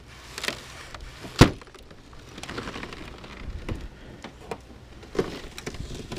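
Ice-glazed rear tailgate being forced open against the ice holding it shut: a sharp crack about one and a half seconds in, then scattered smaller knocks and crackles.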